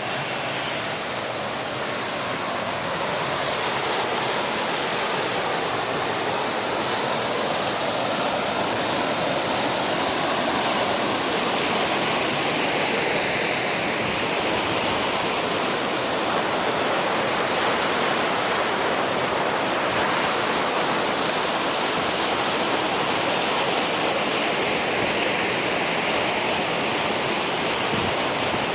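Steady, even rush of falling water from a mountain waterfall, growing a little louder over the first few seconds and then holding.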